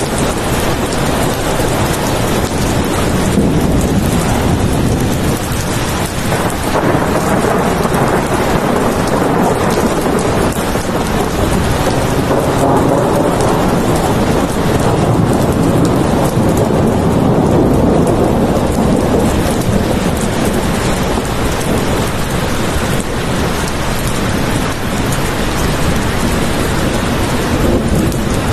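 Steady heavy rain with low rolling thunder that swells and fades slowly.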